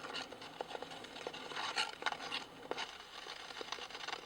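Ice skate blades scraping over a thin layer of ice, with irregular crackling and clicking as the ice cracks under the skater.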